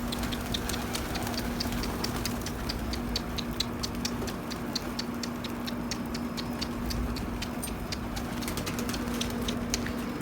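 Domestic pigeons at their loft, with many quick high ticks, several a second, over a steady low hum.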